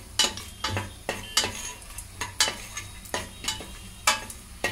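Spatula scraping and knocking on the bottom of a pressure cooker while stirring chopped cashews, almonds and pistachios frying in ghee, with irregular clicks two or three times a second over a faint sizzle.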